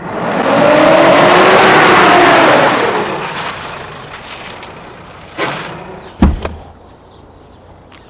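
A pickup truck drives up, its engine and tyre noise swelling loud with a pitch that rises and then falls over the first three seconds before fading. A short sharp high sound comes a little after five seconds, then a pair of thuds about a second later.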